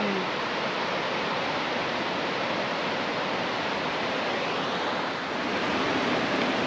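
Mountain creek rushing over boulders, a steady full rush of white water. About five seconds in it dips briefly and comes back slightly louder.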